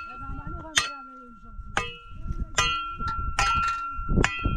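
A metal livestock bell clanking about once a second as the animal moves, each strike ringing on between clanks.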